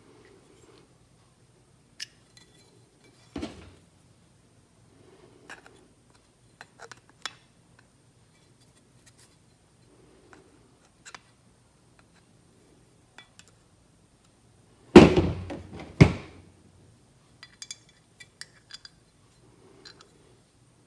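Hand work on a Ford flathead fuel pump: light clicks and clinks of a screwdriver and brass check valves against the metal pump housing, a sharper knock about three seconds in, then two loud knocks about a second apart near fifteen seconds in.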